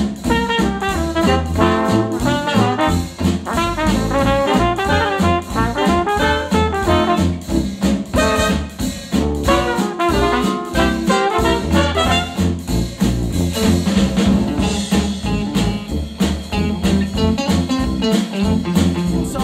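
KEF R3 bookshelf speakers, driven by a NAD C 388 integrated amplifier, playing retro acoustic jazz with brass horns over a steady beat.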